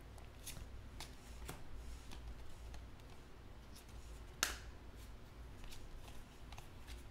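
2020 Panini Chronicles baseball cards being flipped through one at a time in the hand: soft sliding with a series of short, sharp card snaps, the loudest about four and a half seconds in.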